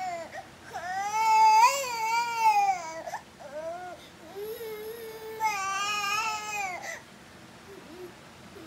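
Baby crying: a long cry that rises and falls about a second in, a few short whimpers, another long cry past the middle, then it dies down near the end.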